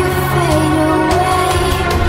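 Background music: a melody line over a steady bass.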